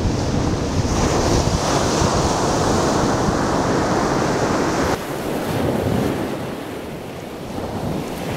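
Ocean surf washing onto a sandy beach, with wind buffeting the microphone. The sound changes abruptly and drops a little about five seconds in.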